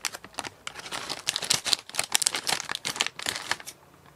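A plastic snack bag crinkling and crackling as it is handled and opened, with the rustling thinning out near the end.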